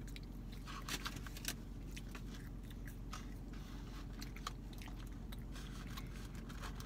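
Close-miked chewing and biting of McDonald's French fries: small crunches and wet mouth clicks, a few sharper ones about a second in, over a steady low hum.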